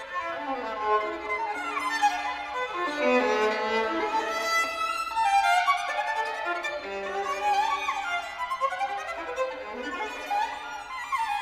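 Unaccompanied violin playing a fast virtuoso passage: rapid scales and arpeggios sweeping up and down, with a few held low notes about two-thirds of the way through.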